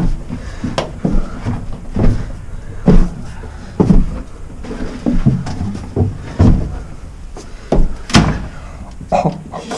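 Heavy footsteps and knocks, about one a second, as someone climbs a narrow stone stairwell; no bell is heard.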